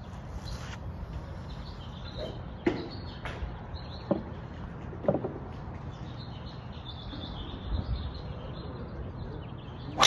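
Outdoor driving-range ambience: birds chirping over a steady low rumble, broken by a few sharp clicks of golf clubs striking balls nearby. The loudest crack comes right at the end.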